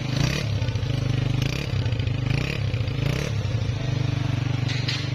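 Freshly rebuilt Honda CG 125's single-cylinder four-stroke engine running steadily on a test run after reassembly. Short bursts of higher-pitched noise come and go over the engine sound.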